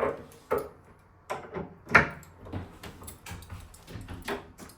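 Metal door-handle hardware clicking and knocking as a handle is fitted onto its spindle and latch: a string of short sharp clicks, the loudest about two seconds in.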